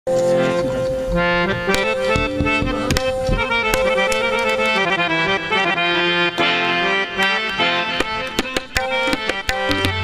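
Instrumental qawwali music of harmonium and tabla. A held harmonium drone note runs under a quick melody, with frequent tabla strokes, and the music starts at once.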